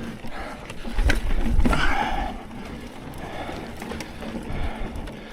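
Mountain bike rolling over a dirt trail: a steady low rumble of tyres with scattered knocks and rattles over bumps.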